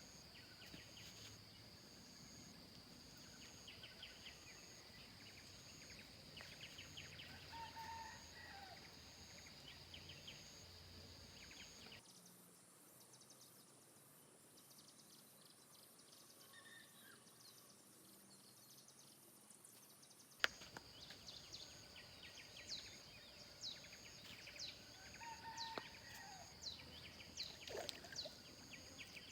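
Faint outdoor ambience: a steady insect drone with a pulsing higher tone over it, and scattered short bird chirps. About 12 s in it cuts to a quieter background. About 20 s in a click brings back the drone, now with a run of quick high chirps.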